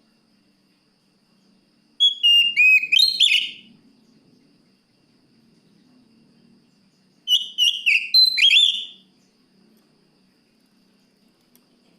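Oriental magpie-robin (kacer) singing: two short bursts of loud whistled phrases with quick up-and-down glides, about two seconds in and again about seven seconds in, with quiet in between.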